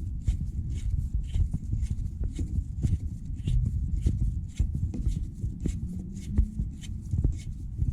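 Electric lathe motor running with a freshly fitted drive pulley: a steady low rumble with a quick, slightly irregular ticking of about four ticks a second.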